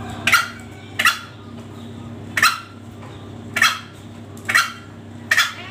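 Caged green junglefowl giving short, sharp calls, about six of them at roughly one a second.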